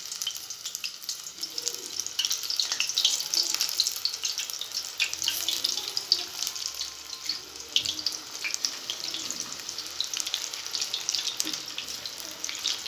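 Pakora batter fritters deep-frying in hot oil in a steel pot: a steady sizzle thick with small crackling pops.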